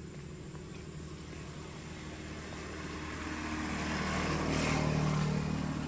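A motor vehicle passing on the road: a steady engine hum with tyre hiss that grows louder over a few seconds, peaks about five seconds in, then starts to fade.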